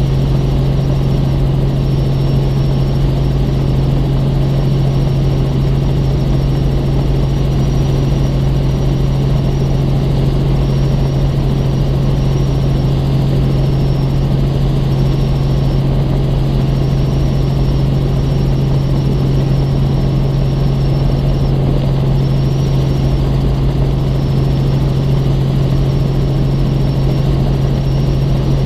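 Robinson R44 Raven II helicopter in flight: the steady drone of its Lycoming six-cylinder engine and rotors, with a strong low hum that holds one pitch throughout.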